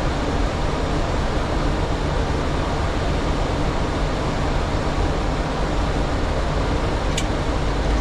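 Steady cockpit noise of a Boeing 737 in flight: an even hiss of airflow and air conditioning over a low hum. A brief, faint high tick comes near the end.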